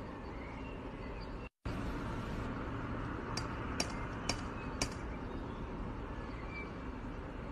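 Steady background noise that drops out completely for a moment, followed by four light clicks or clinks about half a second apart.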